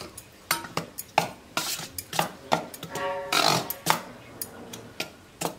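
A steel spoon stirring dry flour in a stainless-steel bowl, with repeated sharp clinks and scrapes against the bowl and a brief metallic ring about three seconds in.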